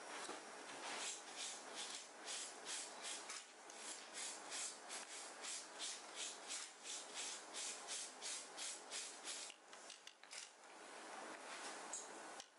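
Rhythmic scrubbing on a stained shirt, about three brisk rubbing strokes a second, stopping about ten seconds in.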